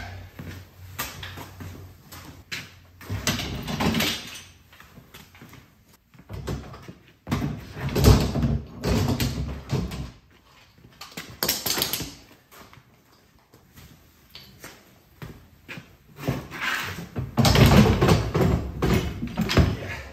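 Metal pipe clamps clanking and rattling as they are lifted off the top of an aluminum dog box, with knocks and scrapes against the box. The loudest clatter comes in spells about eight seconds in, around twelve seconds, and longest near the end.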